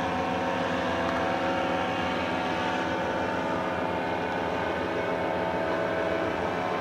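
Powered paraglider's engine and propeller droning steadily overhead. Its pitch eases down slightly near the end.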